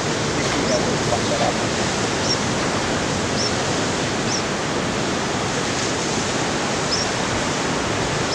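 Steady rushing of ocean surf breaking along the point, with short high chirps recurring about once a second.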